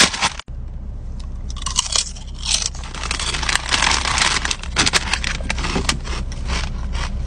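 A foil chip bag is pulled open with a crinkle at the start, then the bag rustles and ridged potato chips (Ruffles Queso) are crunched and chewed, with many irregular crisp bites over a steady low hum.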